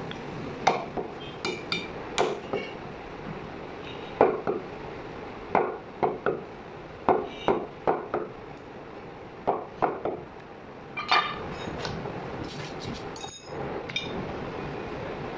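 Butcher's knife blade knocking on a wooden chopping block while slicing mutton leg meat: irregular sharp knocks, often in twos and threes, that stop about eleven seconds in. A steady hiss runs underneath.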